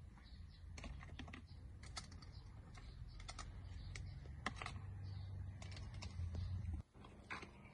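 Irregular light clicks and taps of snail shells handled with metal tongs, knocking against the tongs, the wire grill and the bamboo basket as they are moved. Under them a steady low rumble, which cuts off suddenly near the end.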